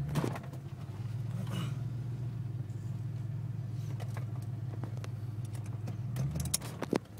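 Ford Mustang 5.0 V8 running rough with a misfire, then cutting out and stalling near the end. A few sharp clicks sound over the running engine.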